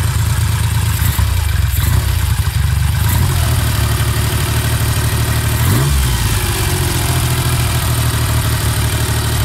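Triumph Trident T160's three-cylinder engine ticking over steadily and nicely on its three freshly cleaned, re-jetted and synchronised Amal Concentric carburettors, running with the bell mouths off. About six seconds in the revs rise briefly and fall back.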